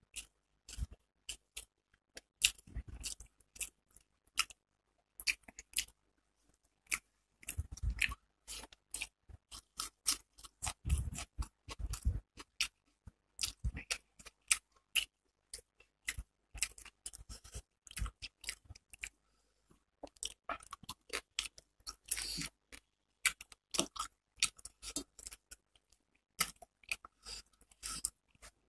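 Close-miked eating sounds of a person eating rice and fish by hand: chewing and wet mouth smacks in quick, irregular clicks, with fingers now and then mixing rice on a steel plate.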